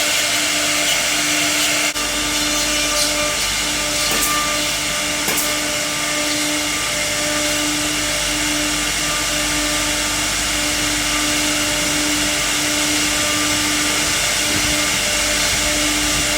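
CNC router spindle running at a steady high whine while it carves wood, over a broad rushing hiss; a brief dip about two seconds in, after which a low hum joins.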